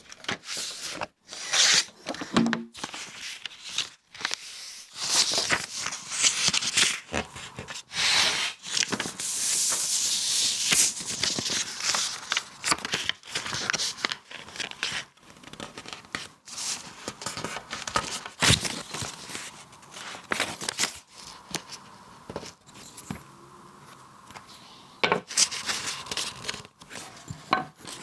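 A sheet of paper being folded and creased by hand for an origami model, with irregular crinkling and rustling.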